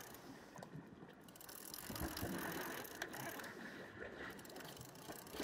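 Fishing reel being wound in with a faint mechanical whirr and light clicking of its gears, retrieving a hooked fish on the first cast.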